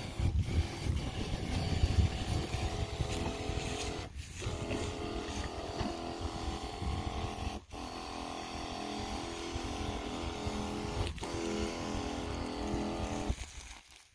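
The 12 V electric pump of a Pandora Micul Fermier 12 L battery backpack sprayer runs with a steady hum while spray hisses from the lance nozzle, over a low rumble. The sound breaks off briefly about three times.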